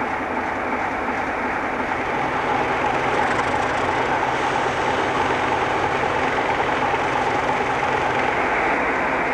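Diesel railway engines running steadily. About two seconds in, a low engine hum joins and the sound grows slightly louder as the Class 47 diesel locomotive stands with its engine running.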